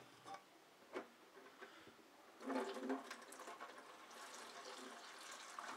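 A few knocks of cookware in a kitchen sink, then, about two and a half seconds in, the faucet comes on and runs into a bowl, splashing loudest at first and then running steadily.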